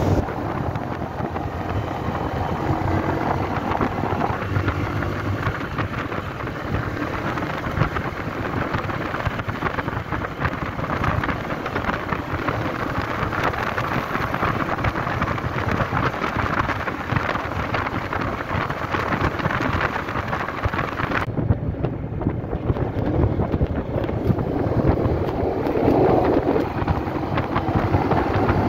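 Wind rushing and buffeting over the microphone of a motorcycle being ridden at road speed, with the bike's engine and tyre noise underneath. About three-quarters of the way through, the hiss drops away and the rush turns duller.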